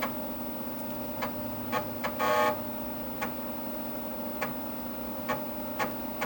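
Keys on a vintage Dimension 68000 computer's keyboard clicking now and then, about six presses, over the steady hum of the running computer, with a short electronic beep about two seconds in.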